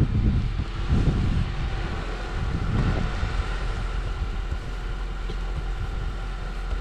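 Steady hum of a car engine idling, with wind on the microphone and a few brushing strokes as snow is cleared off the car near the start, about a second in and about three seconds in.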